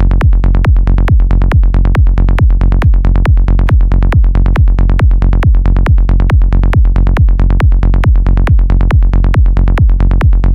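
Electronic dance music with a steady kick-drum beat, about four beats a second.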